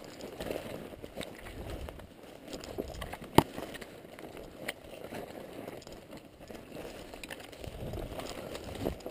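Footsteps and the rustle of dry brush and twigs underfoot, with one sharp click about three and a half seconds in.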